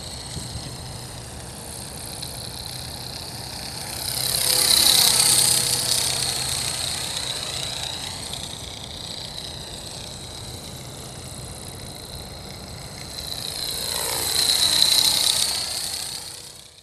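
Accurate 400 radio-controlled helicopter flying, a steady high whine from its rotor and drive, getting much louder twice as it comes close. It is running after a crash with an abnormal noise and vibration.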